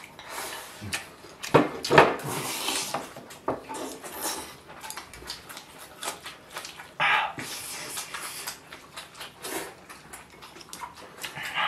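Close-up eating sounds: chopsticks clicking against a ceramic bowl, with slurping and chewing of braised pork belly and dried green beans.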